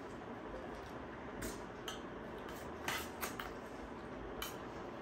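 Spoon and fork clinking and scraping against a steel plate and foil food trays while eating: a handful of light, scattered clinks, the loudest about three seconds in.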